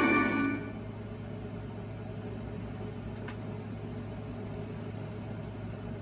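Credits music with mallet percussion ends about half a second in. A steady low hum and hiss follow, with no programme sound, and one faint click partway through.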